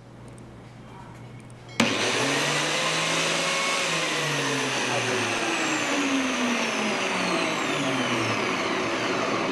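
A small electric appliance motor switches on suddenly about two seconds in and runs loudly and steadily. It is fed through a socket with phase and neutral swapped, and its running shows the switch still works despite the wrong connection.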